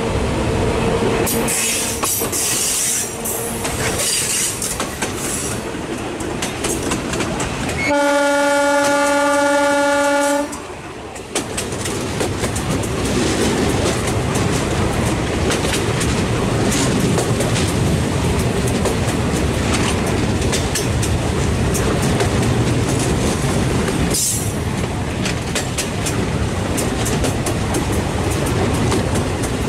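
A Bangladesh Railway commuter train running, with a steady rumble and the clickety-clack of wheels on rail joints. There is some high wheel squeal in the first few seconds. About eight seconds in, a locomotive horn sounds once, a single held note lasting about two and a half seconds.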